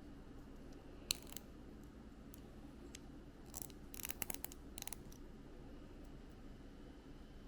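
Small plastic building-block pieces being handled: a sharp click about a second in, then a quick run of clicks and rattles around four seconds in, over a faint low hum.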